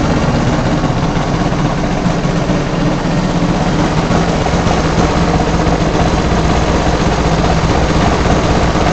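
Shindaiwa four-stroke blower engine, converted to power an RC airplane, running loudly at a steady speed while turning its 25-inch propeller.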